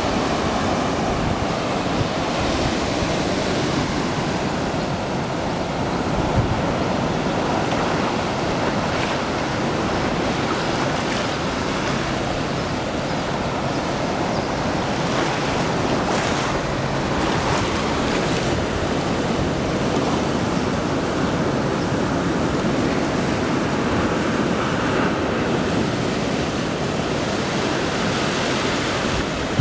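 Ocean surf washing onto a beach, a steady rushing of waves, with some wind.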